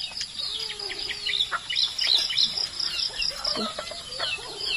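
Chickens clucking in the yard, with many quick, high chirps that fall in pitch, repeating over and over.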